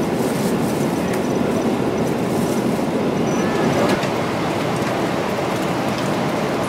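Steady jet airliner cabin noise in flight: an even rush of engine and airflow noise, with a few faint clicks.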